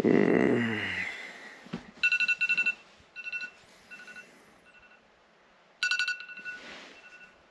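Phone alarm going off: a high electronic tone beeping in short repeated bursts, waking a sleeper. A man's drawn-out groan at the start is the loudest sound.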